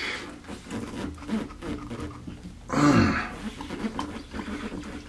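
A man grunts and breathes out hard with effort about three seconds in, straining to pull a tight, O-ring-sealed shower valve cartridge out by hand. Faint handling knocks and rubbing fill the rest.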